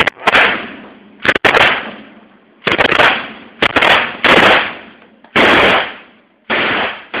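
Gunfire: about nine single shots, unevenly spaced over seven seconds, some in quick pairs, each with a loud crack and a trailing echo.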